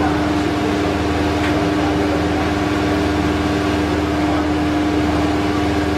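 A steady mechanical hum with one constant pitched tone, over an even rushing noise that does not change.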